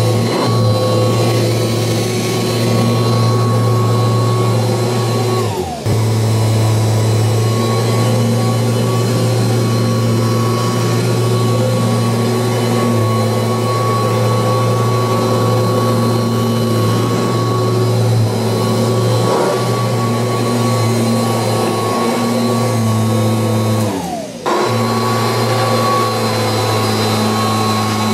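Kirby Heritage II upright vacuum cleaner running with a steady motor hum and whine. Twice, about six seconds in and again about 24 seconds in, the pitch slides down and the sound briefly dips before the motor runs up again.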